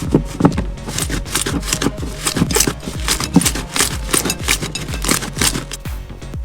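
Slime being squeezed and pressed by hand, giving a dense, irregular run of crackly clicks and pops.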